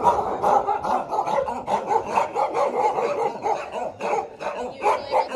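Several kennelled shelter dogs barking continuously, many barks overlapping one another.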